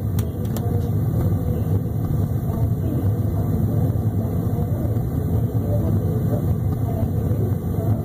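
Propane water heater burner running with a steady low rumble, with a few faint ticks about half a second in. The owner presents this burner behaviour as a problem.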